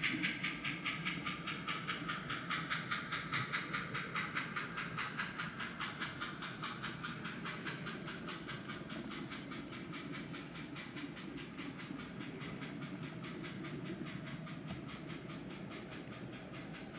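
Sound decoder in a Kato GS-4 N scale steam locomotive model playing rapid, even steam exhaust chuffs through its small speaker, fading steadily as the locomotive runs away from the microphone while its passenger cars roll by.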